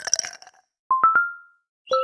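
LG phone notification sounds: a short noisy burst at the start, then about a second in a quick three-note chime rising in pitch, with another chime starting near the end.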